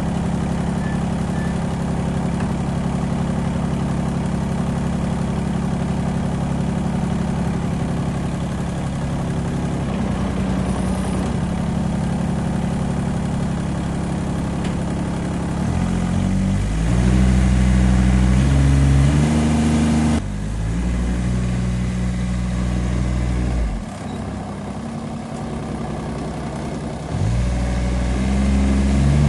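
Kubota GR2100 ride-on mower's diesel engine running, steady at first. From about halfway its pitch and loudness shift up and down in steps as the engine is revved. It drops quieter for a few seconds near the end, then picks up again.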